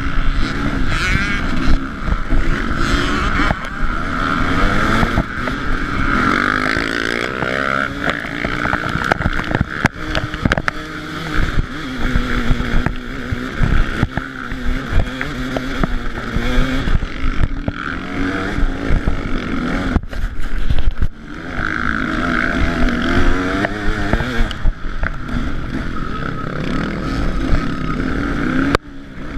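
KTM 300 EXC two-stroke single-cylinder enduro engine ridden hard, its revs rising and falling continually, with scattered sharp knocks.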